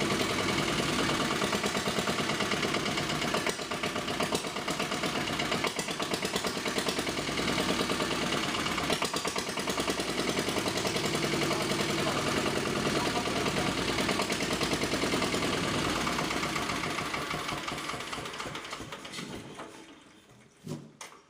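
1930s Onan single-cylinder diesel generator set running at a steady, fast chug, then slowing and dying away about twenty seconds in as it shuts down.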